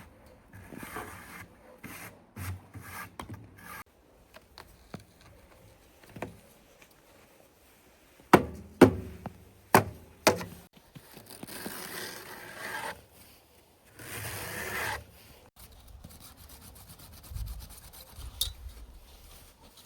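Handling sounds on wood: light clicks, then four sharp knocks about eight to ten seconds in, followed by two stretches of rough rubbing or scraping.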